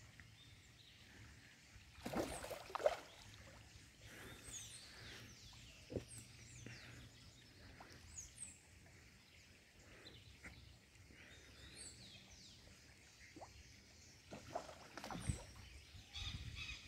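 Faint pond-side ambience: small birds chirping throughout, with a couple of brief louder water splashes from fish rising to take feed pellets, about two seconds in and near the end.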